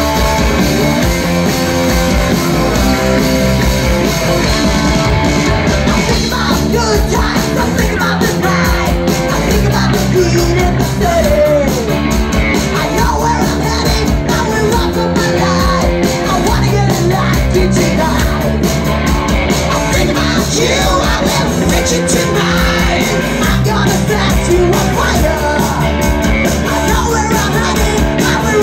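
Punk rock band playing live with electric guitars, bass and drums, loud and dense throughout. A female lead singer comes in about six seconds in and sings and shouts over the band.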